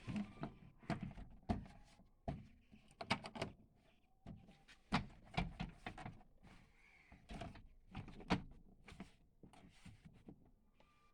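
An irregular series of knocks, thunks and clicks from work on a Maruti Suzuki Alto's door and its door pad.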